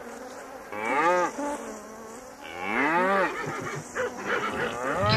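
Cattle mooing: two long moos that rise and then fall in pitch, and a third beginning near the end.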